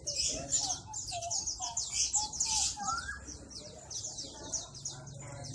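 Many small caged birds chirping and twittering at once: a dense, overlapping high chatter with a few lower calls mixed in.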